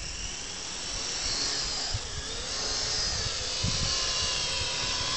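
Small quadcopter drone's electric motors and propellers whining as it lifts off and flies low, rising in pitch early on and growing louder.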